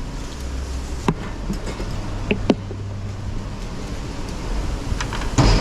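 Wind buffeting the microphone: a steady low rumble, with a few sharp clicks and a louder burst of noise near the end.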